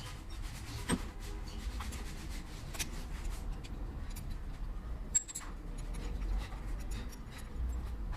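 Light scraping and rubbing with scattered sharp clicks, over a steady low rumble: hand work on engine parts, with tools and metal pieces being handled.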